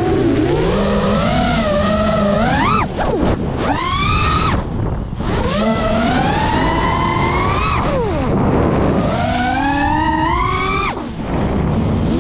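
FPV quadcopter's brushless motors and propellers whining. The pitch rises and falls steeply with the throttle, and several times it sags away as the throttle is chopped for a flip or dive, then climbs back as the throttle is punched.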